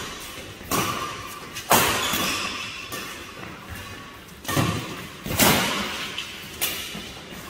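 Badminton rackets striking a shuttlecock in a doubles rally: five sharp smacks spaced one to two seconds apart, each trailing off in an echo.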